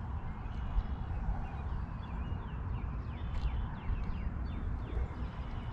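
Wind rumbling on the microphone, with a bird calling a quick run of short falling notes partway through.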